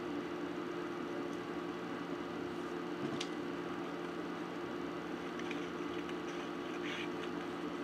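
A steady background hum, with a few faint snips of scissors cutting paper: one about three seconds in and a couple more near the end.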